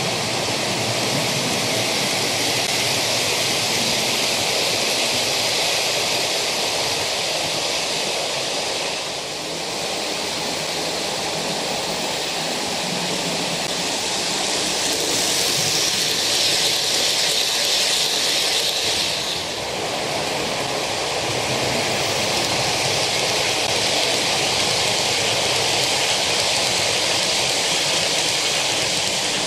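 OO gauge model trains running past on the track: a steady rushing noise of wheels on rails and locomotive motors whirring. It grows brighter and louder for a few seconds just past halfway through.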